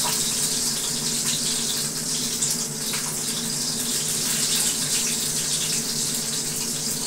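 Steady rushing noise with a low, even hum underneath, unchanging throughout.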